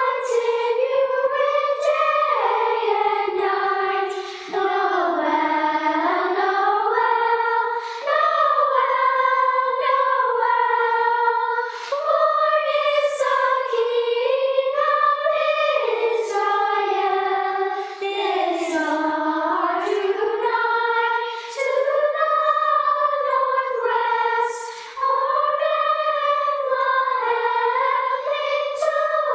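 Youth choir of high voices singing in phrases, with brief breaks for breath between them.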